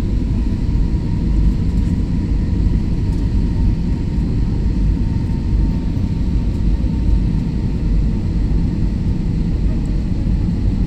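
Jet airliner cabin noise heard from a window seat: a steady deep rumble of the engines and airflow, with a faint steady whine over it.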